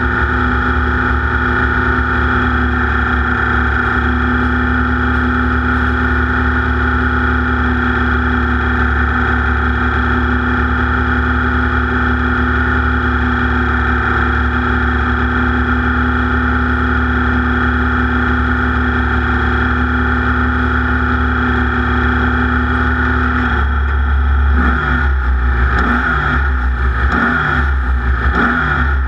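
Race vehicle's engine heard close up and loud, running flat out at steady revs; a little over 23 seconds in, the revs start dropping and climbing again several times in quick succession.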